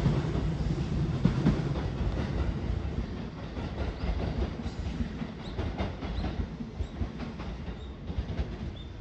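JR East E131 series electric train pulling away, its wheels clicking over the rail joints as the rumble gradually fades.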